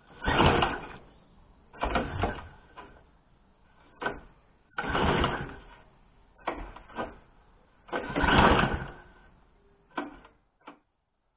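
Recoil starter of a Briggs & Stratton engine on a Mountfield petrol lawn mower, pulled again and again: about six pulls, each a short whirring rattle as the engine is spun over, with the engine never catching and running.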